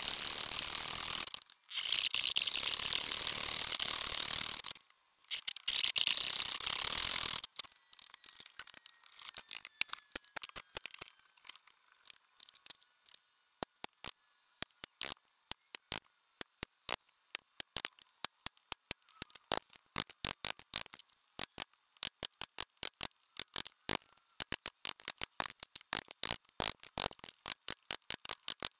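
A dovetail backsaw cutting through hardwood in rasping strokes, with two short pauses, for about the first seven seconds. Then a chisel chops out the dovetail waste: a long run of sharp taps that becomes quicker and steadier, several a second.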